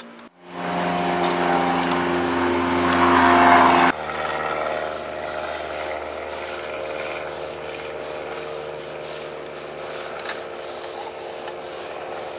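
A foam applicator pad rubbing tire shine onto a tire's rubber sidewall, over a steady hum that is louder for the first four seconds and then drops and changes.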